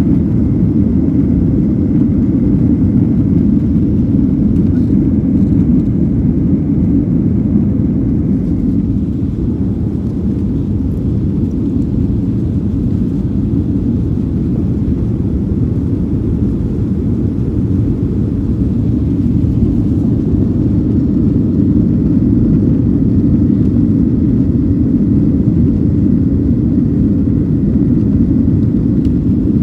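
Airplane engines during takeoff as a steady, loud low rumble, with a faint high tone that fades out about eight seconds in.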